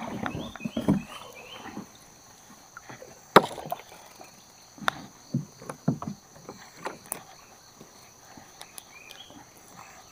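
Irregular knocks and splashing from a small boat on a fast river, with one sharp knock about three and a half seconds in. A steady high insect drone runs underneath.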